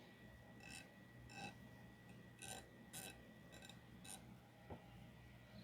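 Near silence broken by about six faint, sharp metallic clicks and taps at irregular intervals, from small ratchet parts and a tool being handled during reassembly of a Snap-on ratchet.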